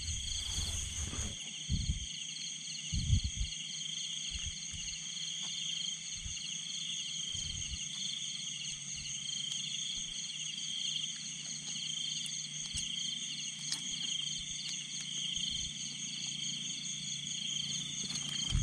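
A steady, pulsing chorus of insects trilling in several high pitches, with a couple of low thumps in the first few seconds.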